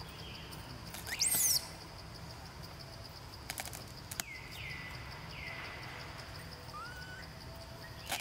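A baby macaque giving high-pitched cries: a loud one that sweeps up and falls away about a second in, then several fainter whimpering calls, over a steady high-pitched hum.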